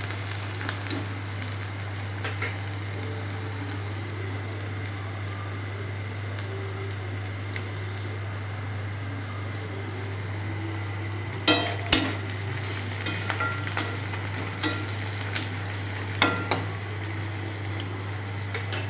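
Chopped onions and chillies sizzling steadily in hot oil in an aluminium kadai. A spatula stirs them, knocking against the pan a few times, most sharply about twelve seconds in.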